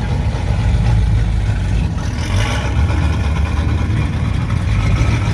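A car engine running with a steady, deep low rumble, and a short hiss about two seconds in.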